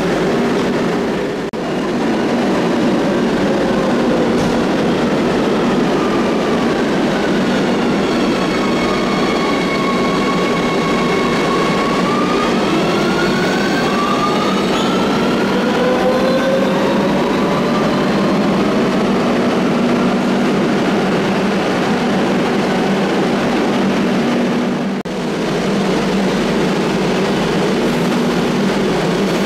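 Madrid Metro 3000-series trains running through an underground station: a continuous rail rumble with a steady hum, and an electric traction whine that falls in pitch as a train brakes in, then rises again as a train pulls away, a little past the middle.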